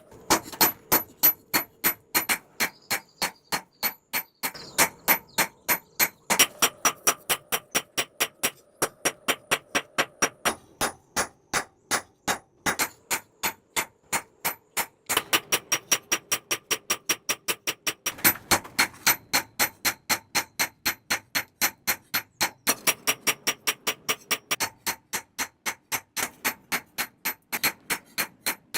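Hand hammer striking steel on an anvil in steady blows, about three a second, each with a bright metallic ring, in several runs with short pauses between: a knife blade being hammered out at the forge.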